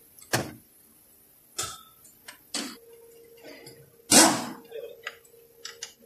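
Scattered metal clicks and knocks from parts being handled on a partly disassembled GM 6T75 automatic transmission, with one louder clunk about four seconds in.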